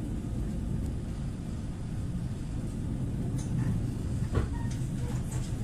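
Steady low rumble of a moving passenger train, heard from inside an executive-class coach, with a few brief clicks and knocks in the second half.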